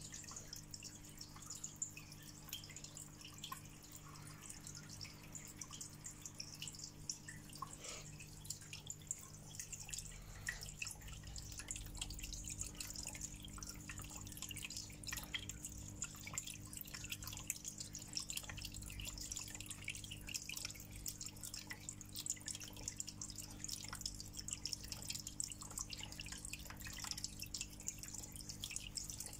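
Small aquarium waterfall decoration trickling and dripping continuously, a dense run of small irregular drips and splashes, over a faint steady low hum.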